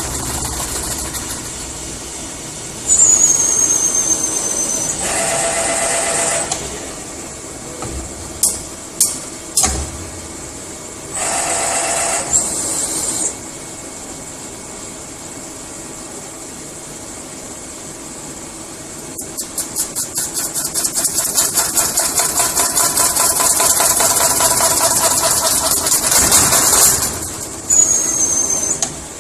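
Metal spinning machine running, with a steady hum and short loud whirring spells. A high whistle falls in pitch near the start and again near the end, a few sharp knocks come about a third of the way in, and a fast rhythmic chatter builds up and runs for several seconds in the second half.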